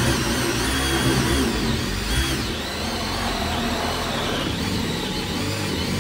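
Cordless drill boring a hole down through the wooden floor, running continuously with its motor pitch dipping now and then as the bit loads up.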